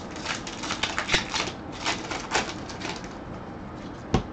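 Baseball trading cards and a pack wrapper handled by gloved hands: a run of quick crinkles, rustles and clicks, then one sharp knock on the table about four seconds in.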